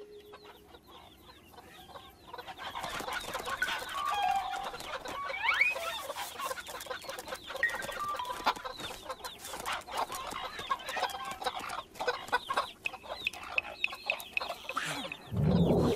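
A flock of cartoon chickens clucking and squawking, many short calls overlapping, starting about two seconds in after a quiet opening. A louder rising sound comes just before the end.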